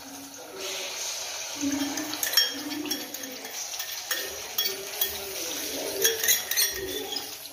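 A metal spoon stirs and scrapes a paste frying in oil in an aluminium kadai, over a steady sizzling hiss. Several sharp clinks follow as a small steel bowl is knocked against the kadai to empty it in.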